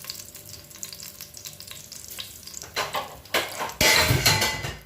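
Hot vegetable ghee sizzling in a pot as whole spices (cumin, fennel, cardamom, cinnamon, peppercorns, cloves) go in. The sizzle flares loudest for about a second near the end, then cuts off suddenly.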